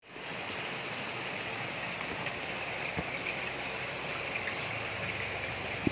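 Steady rush of running water, with a faint knock about three seconds in and another at the very end.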